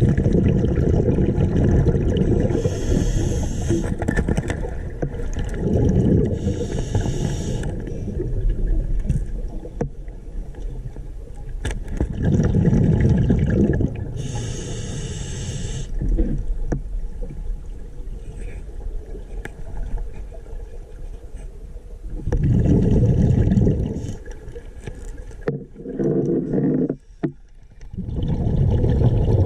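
Scuba diver breathing through a regulator underwater: a hiss on each inhale and a gurgling rush of exhaled bubbles, repeating every few seconds.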